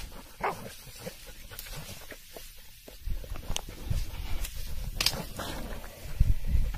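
Hunting dog giving a few short barks, over low wind and handling rumble.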